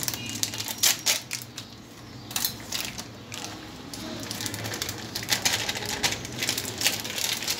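Plastic custard-powder packet crinkling in the hands as it is opened and emptied into a glass bowl, with irregular sharp crackles.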